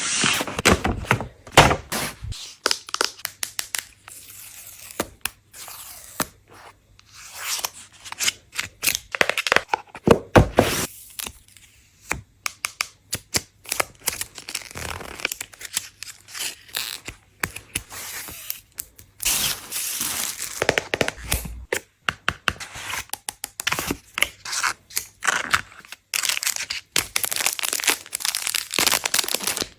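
iPhone 16 Pro Max box and packaging being torn open and handled: irregular tearing and crinkling of paper and plastic, with sharp clicks and knocks of cardboard and a few short pauses.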